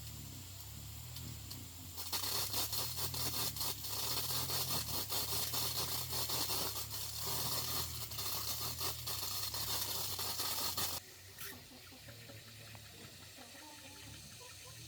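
Harsh scraping noise from work on metal, starting about two seconds in and stopping abruptly about eleven seconds in, over a low steady hum.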